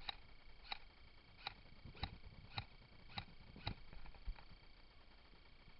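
Faint, evenly spaced clicks or steps, about two a second, over a faint steady high tone; the clicks stop about four seconds in.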